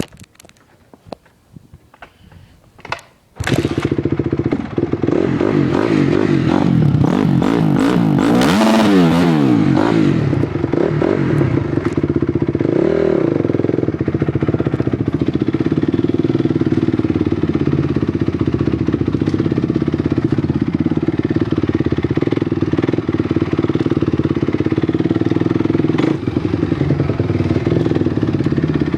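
2006 Honda CRF250R's single-cylinder four-stroke engine: a few clicks, then it starts about three and a half seconds in, revs up and back down around nine seconds in, blips once more a few seconds later, and settles into a steady idle.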